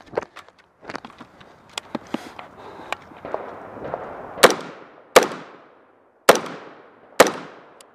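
AR-style semi-automatic rifle firing four shots in the second half, each about a second apart and each trailing off in a long echo. Fainter sharp cracks and knocks come before them.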